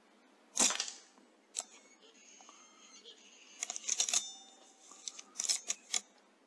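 A moderated .177 Weihrauch HW100S PCP air rifle fires once about half a second in, a sharp crack. It is followed over the next few seconds by several sharp clicks and thin, high-pitched squeaks.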